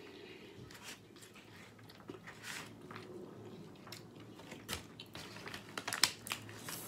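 Close-miked chewing of a chicken, rice and bean bowl: soft wet mouth clicks and smacks at an irregular pace, with a few sharper clicks about six seconds in.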